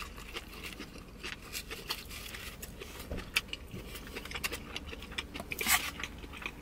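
Close-up eating sounds: chewing and mouth clicks, with many small sharp ticks scattered throughout and a louder one near the end.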